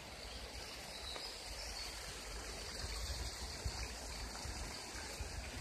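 Water rushing steadily from the outfall of an Archimedes screw hydro turbine into the river, with irregular low rumbles underneath.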